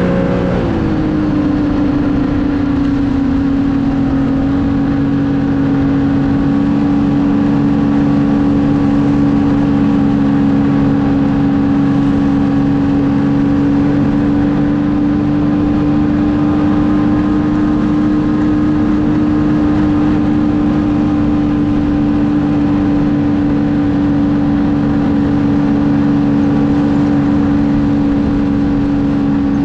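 Snowmobile engine running under way. Its pitch shifts in the first second, then holds steady at one engine speed for the rest.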